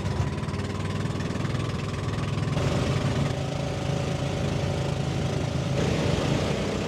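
Motorized bangka's engine running steadily, heard from on board.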